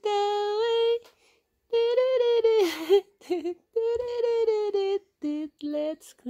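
A high voice singing a simple sing-song tune without clear words, in short phrases of long held notes with brief pauses between them.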